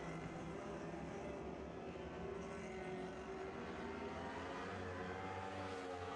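Engines of winged dirt-track sprint cars running at low speed under a caution. Several engine tones overlap in a steady hum, with the pitch rising slightly about five seconds in.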